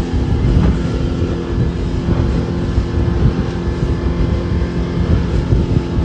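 Motorboat running at speed, its engine a steady drone, with wind buffeting the microphone and the rush of water along the hull.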